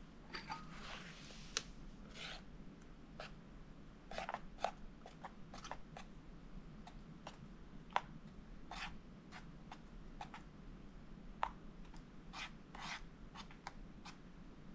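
Close-up handling sounds: irregular rustling and scraping with scattered small clicks and ticks, a few sharper ones standing out.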